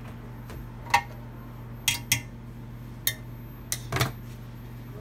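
Sharp clinks and knocks of metal and glass candle-making utensils being handled, about six of them spread over a few seconds, over a steady low hum.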